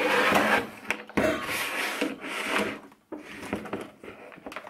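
A hard plastic equipment case being slid and turned round on a tabletop: two long scraping rubs, then a few light knocks.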